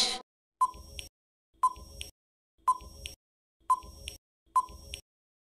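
Quiz countdown sound effect: five short electronic ticks about a second apart, marking the time left to answer.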